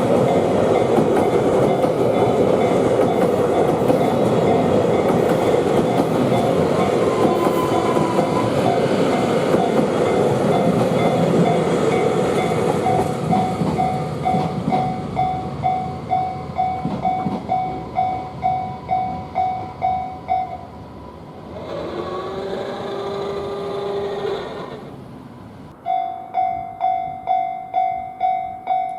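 A train runs over a Japanese railway level crossing while the crossing's electronic bell rings in a steady ding-ding of about two strikes a second. The train noise dies away, and about two-thirds of the way through the bell stops. After a few seconds of quieter, unclear sound, the bell starts ringing again near the end.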